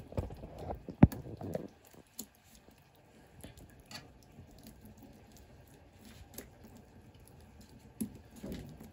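A metal spoon spreading tomato sauce over raw pizza dough in a non-stick pan: soft scraping and patting, with one sharp click about a second in and a few lighter ticks after.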